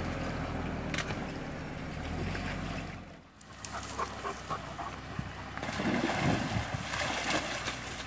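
A car engine running low and steady for about three seconds, then a shallow stream flowing, with splashes as a dog wades through the water and a man steps across the stones.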